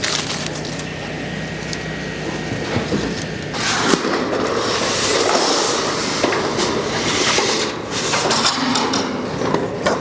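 A long corrugated steel roof panel being lifted, flexed and slid over the roof sheets: a loud rattling, scraping sheet-metal noise that starts a few seconds in and goes on, over a low steady hum at the start.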